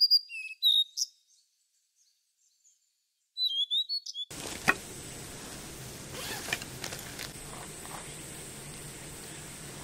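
Short bird chirps against dead silence, a cluster near the start and another just before the four-second mark. Then a steady outdoor hiss with a few soft knocks takes over.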